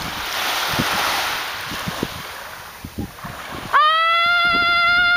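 Surf washing on the beach with wind thumping on the microphone, then about three and a half seconds in a person begins a loud, high shout held on one steady pitch as long as they can.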